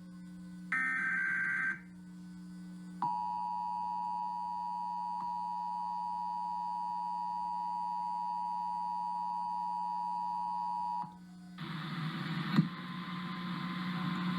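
Emergency Alert System broadcast: the last of the SAME header's raspy data bursts, ending about two seconds in, then the steady two-tone EAS attention signal held for about eight seconds and cut off sharply, followed by a hiss of noise with a single sharp click. A low steady hum runs underneath.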